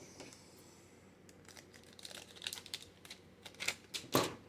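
Trading-card pack wrappers crinkling and cards being handled: a run of light crackles and clicks, busier in the second half, with the sharpest one near the end.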